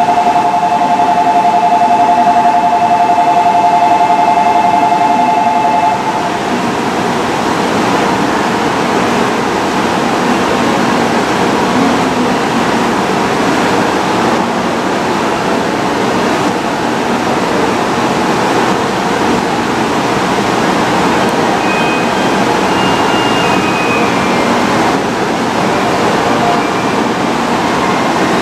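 Steady hiss and hum of a stationary N700-series Shinkansen's onboard equipment at the platform. A steady two-note electronic tone sounds over it for the first six seconds, then cuts off.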